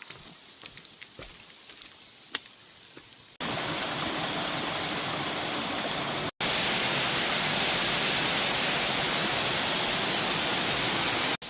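Water rushing down a waterfall, a loud steady hiss that starts abruptly about three seconds in and breaks off for an instant twice. Before it there are only faint outdoor sounds with a few small clicks.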